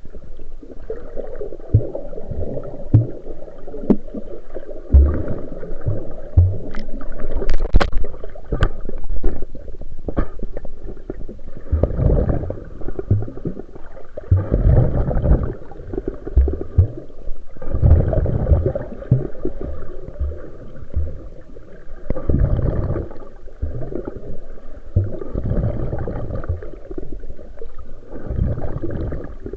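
Sea water surging and sloshing, swelling every few seconds over a steady low rumble, with a few sharp clicks about a quarter of the way in.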